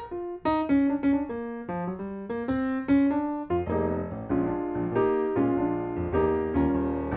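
Background piano music: a melody of struck single notes, joined by low bass notes about halfway through.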